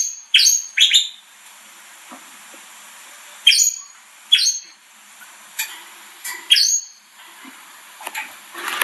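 Young Gloster canaries calling: short, sharp chirps, one or two at a time, at irregular intervals of about a second or more.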